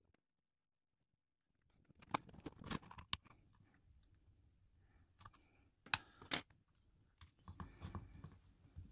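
A metal safety pin prying at the edge of a GU10 smart bulb's LED circuit board and plastic housing: irregular sharp clicks and scrapes, starting about two seconds in and bunching up near the end.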